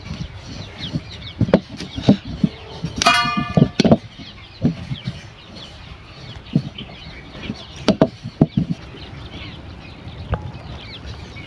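A wooden rolling pin rolling dough on an upturned stainless steel plate, knocking against the metal now and then, with a steel bowl clinking on the plate near the end. About three seconds in, a bird gives one loud call, and small birds chirp throughout.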